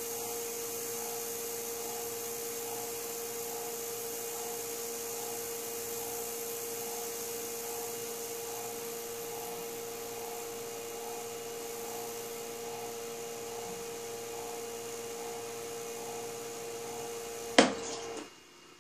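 Degritter ultrasonic record cleaning machine running its wash cycle: a quiet, steady hum with a faint regular pulsing. Near the end there is a sharp click and the hum cuts off as washing ends, before the machine drains.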